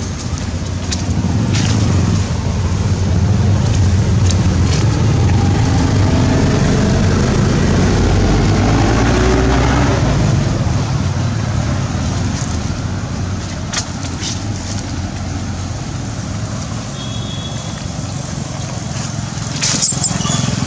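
A road vehicle passing close by: a low engine and road rumble that builds over the first couple of seconds, holds, and fades after about ten seconds. A few short sharp clicks sound over it.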